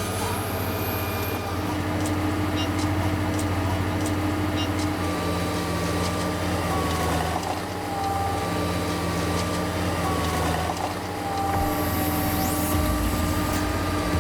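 Heavy diesel engine running steadily, its pitch shifting slightly a few times.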